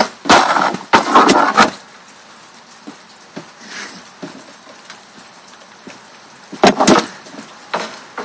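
Loud rustling and clattering for about a second and a half, then a low steady hiss broken by a few sharp knocks near the end.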